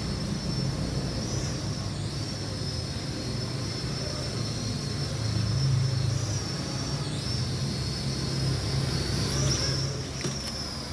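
Toy mini quadcopter drone's motors and propellers whirring with a steady high whine that wavers slightly in pitch as it flies. A few short knocks near the end.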